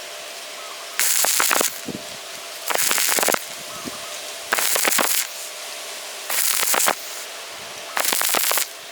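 Stick-welding arc crackling in short bursts, five in all, each about half a second long and spaced about two seconds apart: the arc is struck and broken again and again, laying the weld in stitches.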